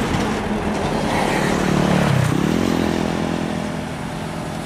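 Sumitomo 265 excavator's diesel engine working under load. About two seconds in its pitch drops, then it runs steady at a lower pitch.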